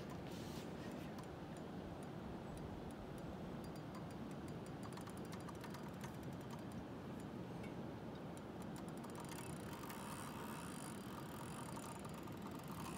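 A fishing reel clicking with a large sturgeon on the line: scattered clicks at first, turning into a fast, dense run of clicks in the last few seconds. A steady low rush runs underneath.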